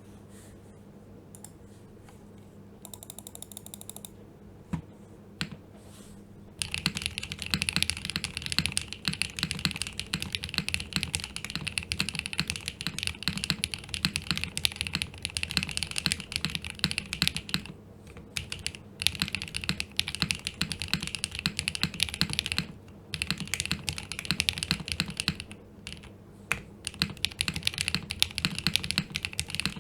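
Typing on a Geonworks Frog Mini 60% custom mechanical keyboard with a polypropylene plate and Sarokeys BCP linear switches. A few scattered key clicks at first, then fast continuous typing from about six and a half seconds in, broken by a few short pauses.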